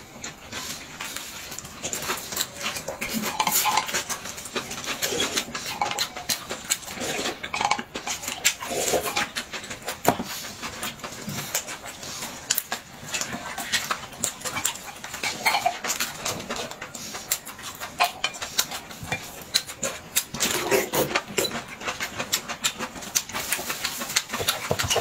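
Eating and table sounds: many quick clicks and taps of chopsticks and dishes, with chewing and mouth noises.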